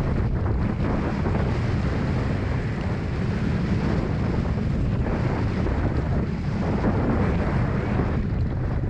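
Strong wind buffeting an onboard action-camera microphone on a Hobie 16 catamaran sailing fast, with water rushing past the hulls. The noise is steady and gusty, with no separate knocks or events.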